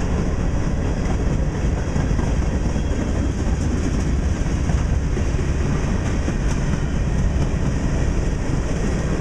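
Freight cars of a Norfolk Southern mixed freight train rolling past: tank cars, a gondola and covered steel-coil cars, their steel wheels running on the rails in a steady, loud rumble with faint clicking.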